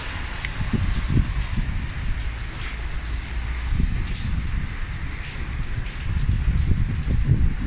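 Rain falling, with scattered sharp drip ticks over a steady hiss. A loud, uneven low rumble runs underneath.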